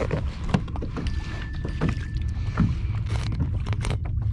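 Water sloshing and slapping against a kayak's hull, with many short splashy clicks over a steady low rumble of wind on the microphone. A thin, steady high tone sounds for about a second and a half, starting about a second in.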